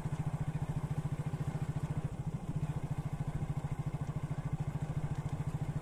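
Small motorcycle engine running steadily under way, a rapid, even putter of firing pulses.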